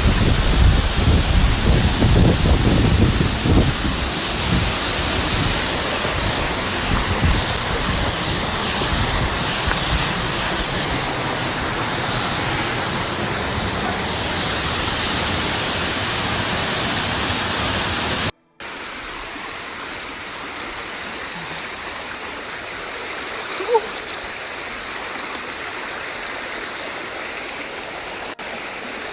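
Waterfall rushing: a loud, steady roar of falling water. After a sudden cut about two-thirds of the way in, the water noise is quieter and steady, with one short rising chirp partway through.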